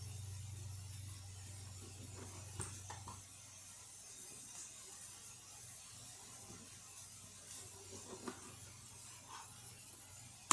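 Quiet kitchen sounds: a low steady hum and the faint hiss of hamburgers frying, with a few soft clicks of a knife on a cutting board as a tomato is sliced, twice about two and a half seconds in and once near eight seconds.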